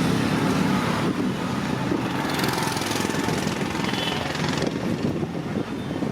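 Steady mechanical rumble of street traffic and engines.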